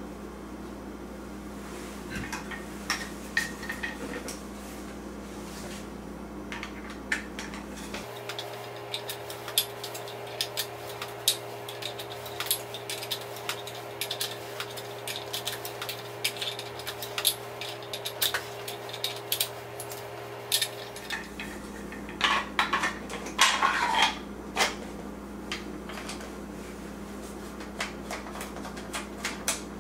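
Small metal clicks and clinks of rifle parts being handled and fitted together: the barrel locking cap screwed down, then the wooden fore-end slid onto the barrel and its cap tightened. The loudest run of rattling clinks comes about three-quarters of the way through, over a steady low hum.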